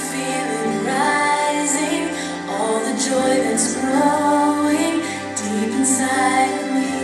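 A song with a woman singing a gentle melody over instrumental backing, played for a children's ballet dance.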